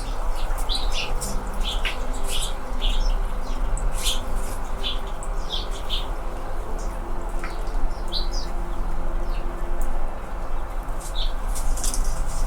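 Anna's hummingbirds giving many short, sharp, high chip notes in scattered runs, over a steady low background hum.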